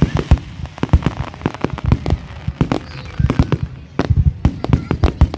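Fireworks display: a rapid run of overlapping bangs and cracks, several a second, growing busier near the end.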